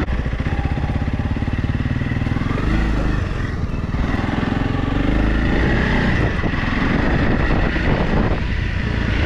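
Motorcycle engine running under way, its revs rising and falling.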